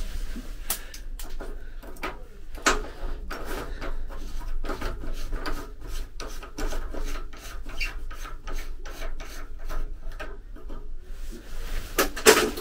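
Irregular rubbing, scraping and small clicks of hands working a small wall lamp fixture loose, with a louder clatter about twelve seconds in.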